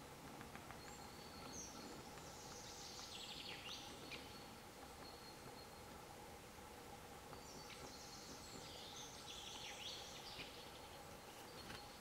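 Faint song of a small songbird, two phrases of about three seconds each, the first starting about a second in and the second after about seven seconds. Each phrase is a quick run of high notes falling in pitch, over a steady faint background hiss.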